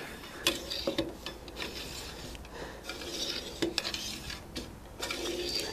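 A cleaning rod with a tight patch being worked up and down the bore of a black-powder shotgun barrel, pumping water through it to flush out the breech: repeated rubbing and scraping strokes with light clicks.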